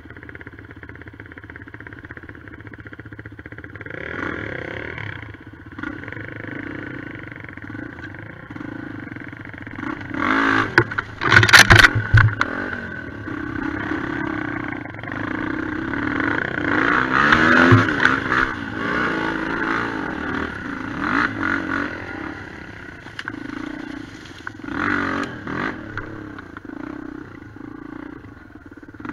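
Single-cylinder four-stroke enduro motorcycle engines running off-road, revving up and down at low speed. A loud burst of clattering knocks comes about ten to twelve seconds in, and the revs rise and fall several times after it.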